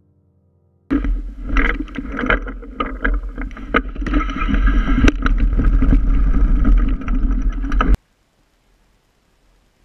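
Wind buffeting the camera's microphone beside a shallow, rippling creek, with scattered clicks and knocks; it starts suddenly about a second in and cuts off abruptly near the end.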